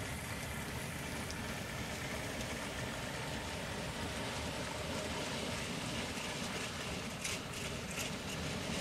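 Model railway trains running past on the layout: a steady rumble of wheels and motors on the track, with a few sharp clicks near the end.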